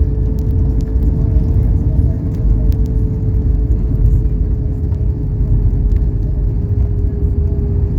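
Steady jet airliner cabin noise: a deep, even rumble of engines and airflow with a constant hum, and a few faint ticks.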